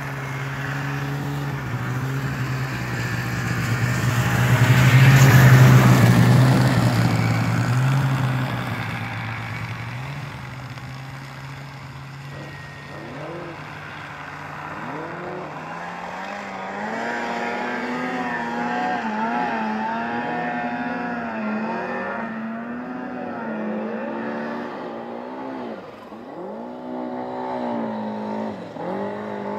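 Snowmobile engines. One runs steadily and swells loudly as a sled passes close about five seconds in, then fades. From about a dozen seconds in, a sled's engine revs up and down again and again as it works its way up the hill through the trees.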